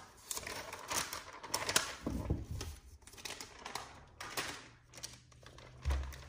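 A laptop's white protective wrap rustling and crinkling as it is handled and peeled open, in many irregular small crackles, with a couple of dull low thumps as the laptop is set down or shifted.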